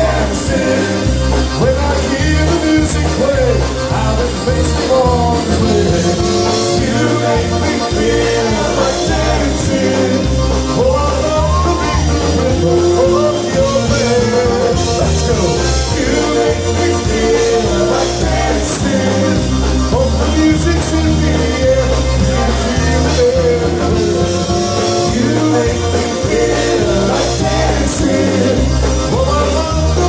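Live polka band playing through a PA: piano accordion and concertina over electric bass and a drum kit with a steady beat, and a man singing into a microphone.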